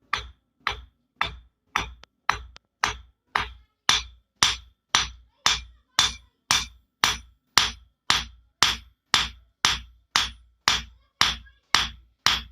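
Blacksmith's hand hammer striking a metal workpiece in a steady rhythm, a little over two blows a second, each blow with a short metallic ring.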